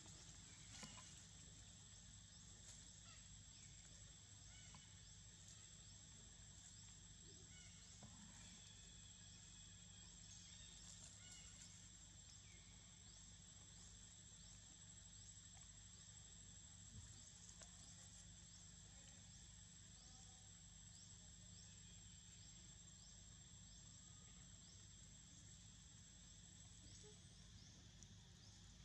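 Near silence: faint outdoor ambience with a thin, steady high-pitched whine that stops near the end.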